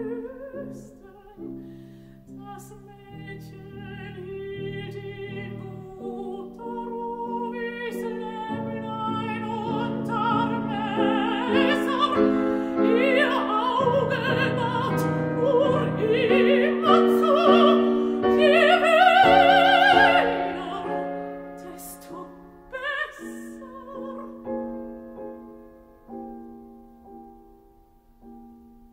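A mezzo-soprano sings a German art song (lied) with piano accompaniment, her voice carrying a wide vibrato. The song swells to its loudest high notes about two-thirds of the way through, then dies away toward the end.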